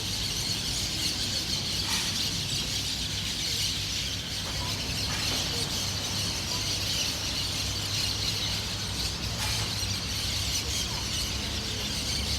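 A dense, continuous chorus of many birds calling at dusk, over a steady low rumble.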